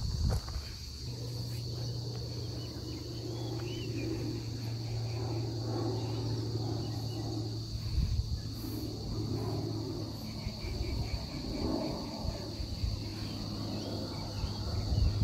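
Insects singing in a steady, unbroken high-pitched drone, over a steady low hum and some low rumble.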